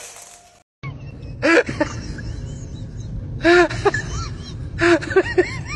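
A puppy giving short, high yelps: one about a second and a half in, another about two seconds later, then a quick run of several near the end, over a low rumbling background.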